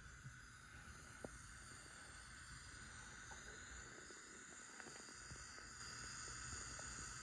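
Faint steady hiss with a few light clicks from the stationary Oxford Rail N7 tank engine model's factory-fitted DCC sound decoder, playing its idle steam sounds; it grows slightly louder.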